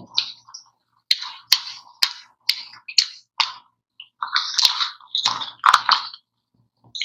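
Close-miked chewing and crunching of ice cream: crisp crunches about two a second, then thicker, denser chewing from about four seconds in.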